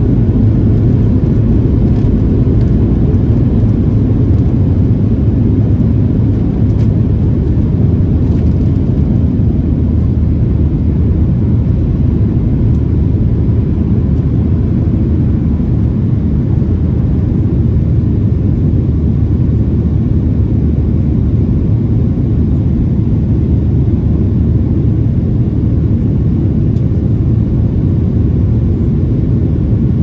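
Steady low rumble of a Boeing 737-700's CFM56-7 engines and airflow, heard inside the passenger cabin.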